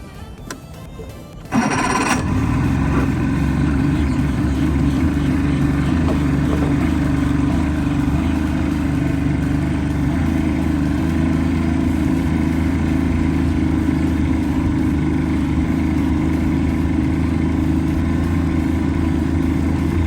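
Boat outboard motor catching about one and a half seconds in, then idling steadily while cold, warming up before test runs.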